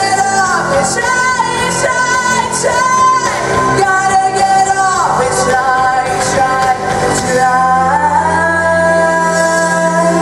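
A girl sings a pop ballad into a handheld microphone over an instrumental backing track. About seven seconds in she settles into one long held note over steady sustained chords.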